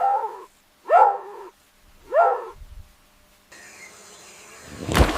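An animal gives three short, pitched, bark-like calls in the first two and a half seconds, each rising sharply at its start. After that a steady hiss comes in, and louder noisy sounds near the end.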